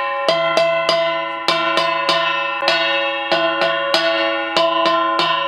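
Brass puja hand bell rung steadily, about three strikes a second, its tones ringing on between strikes.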